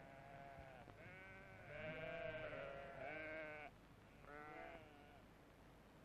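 Penned lambs bleating faintly: several calls overlap from about a second in until nearly four seconds, followed by one more call a little later.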